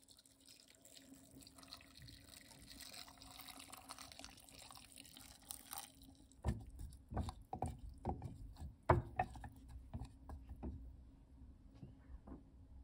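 Freshly boiled pickling brine poured from a saucepan into a glass jar of cubed radish: a steady splashing stream at first, thinning from about halfway through into a trickle of separate drips and splashes.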